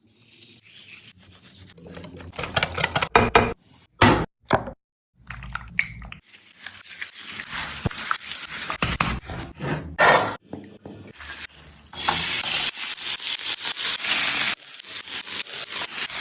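Food-preparation sounds: repeated scraping and rubbing strokes in short clips, cut off abruptly between clips.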